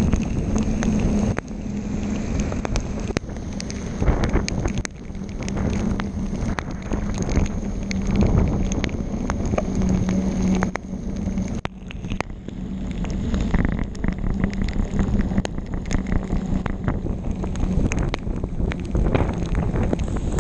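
Heavy rain and wind noise on a bicycle-mounted GoPro riding through a thunderstorm, with many raindrops ticking on the camera housing and tyres hissing on the wet road.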